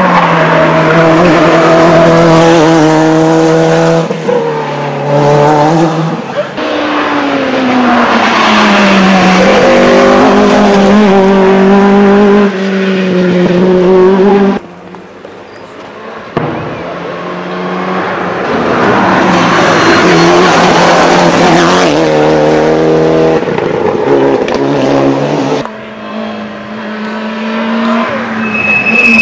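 Rally car engines revving hard through the bends of a tarmac stage, their pitch climbing and dropping again and again at gear changes and lifts off the throttle. The sound cuts off suddenly about halfway through, then a second car is heard building up.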